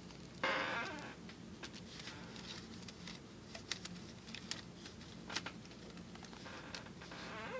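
Handling noise on a Toshiba Portege convertible laptop: a short scraping rustle about half a second in, then scattered light plastic clicks and taps as the machine is touched and its stylus is worked at the side slot.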